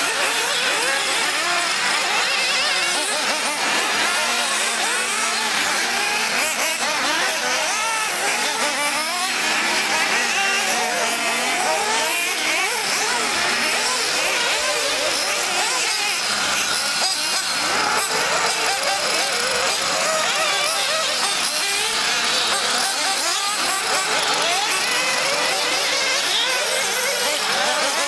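Several 1/8-scale nitro RC buggies' small two-stroke glow engines running hard around the track, several high whines overlapping and rising and falling in pitch as the cars accelerate and brake through the corners.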